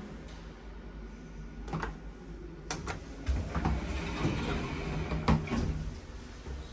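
Lift car-panel push buttons clicking as they are pressed, five clicks spread over several seconds, over a steady low hum in the cab of an Otis Gen2 machine-room-less elevator.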